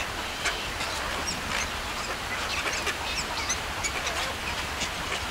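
A flock of waterbirds calling: many short, high calls overlapping one another, over a steady low rumble.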